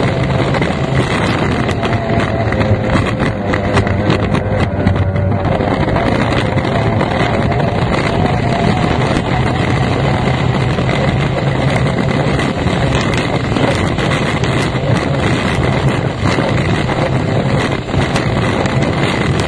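Racing outboard engine of an F1 powerboat running hard under way, heard from the cockpit, with wind buffeting the microphone.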